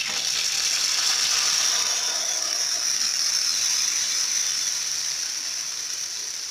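Grated-potato pancake mixture frying in hot oil in a pan: a loud, steady crackling sizzle that eases gradually.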